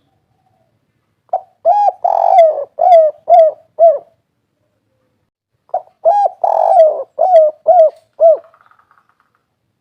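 Spotted dove (tekukur) cooing its 'kuk 3' song twice: each phrase is a short opening note, a longer slurred coo, then three short clipped coos.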